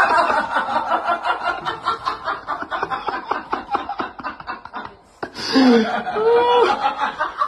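A person giggling in a long run of quick, rapid bursts, then, after a brief pause about five seconds in, a voice calling out in short sliding tones.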